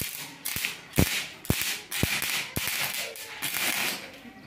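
Stick (arc) welding electrode tack-welding the joint of a stainless steel handrail pipe: a run of sharp pops and snaps as the arc is struck and broken, with spells of crackling between them.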